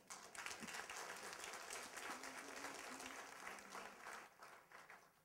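Audience applauding: a room full of people clapping, which starts at once, holds for about four seconds and then dies away.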